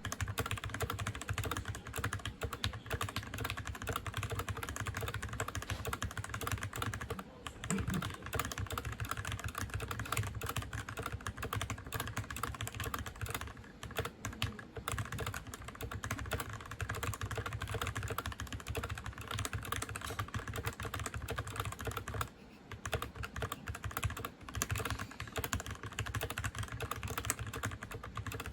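Keychron K6 mechanical keyboard with lubed Gateron Red switches and a foam-filled case, typed on in a steady stream of keystrokes. The typing pauses briefly about seven seconds in and again around twenty-two seconds.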